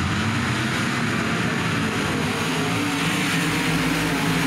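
Race car engines running at speed on a dirt oval, a steady loud drone with a broad rush of noise behind it.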